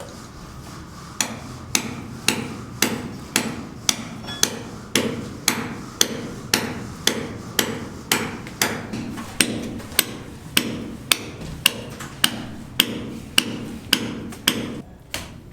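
Hammer blows struck in a steady rhythm, about two a second, starting about a second in and stopping just before the end.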